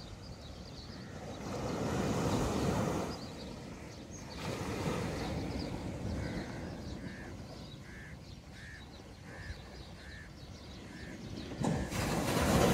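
Gentle surf washing onto a sandy shore, swelling and fading. Partway through a bird calls over and over, about two short calls a second for some five seconds, and a wave breaks louder near the end.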